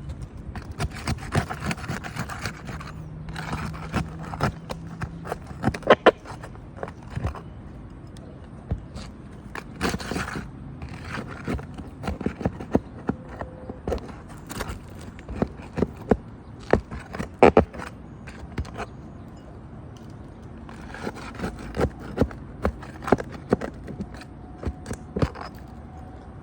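An asphalt roof shingle being pried loose from the roof: scraping with many irregular sharp clicks and knocks as a tool works under the shingles.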